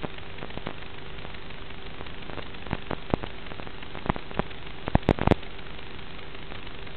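Steady static hiss with a faint steady hum from the audio channel of an analog FPV video feed, broken by several sharp crackles about halfway through.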